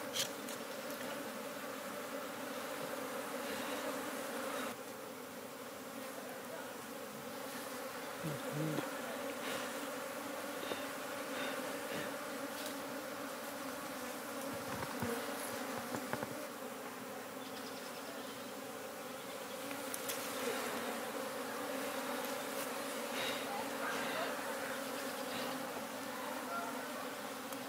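Steady buzzing hum of a colony of native Indian honey bees, stirred up as their nest is cut open and the comb taken out.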